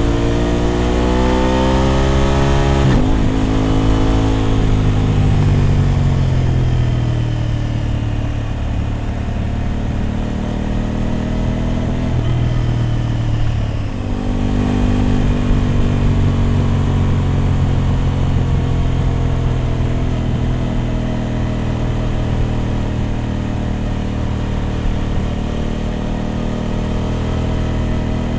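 Aprilia RS 660's parallel-twin engine through an SC Project exhaust, pulling with its note rising for about three seconds. It breaks off suddenly, then falls as the bike slows off, and settles into a steady, low-rev cruise with a couple of small throttle rises.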